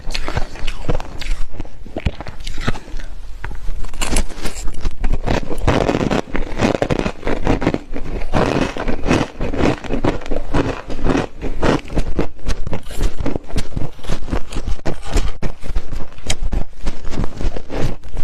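Freezer frost being crunched: a dense, irregular run of crisp, crackly crunches.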